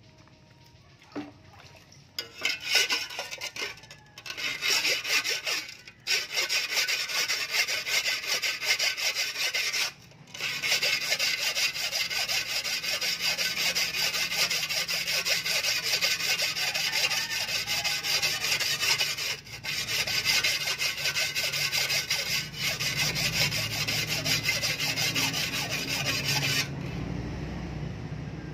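Flat sharpening stone rubbed rapidly back and forth along the edge of a steel shovel blade by hand, a fast scraping in several long runs with brief pauses, stopping near the end.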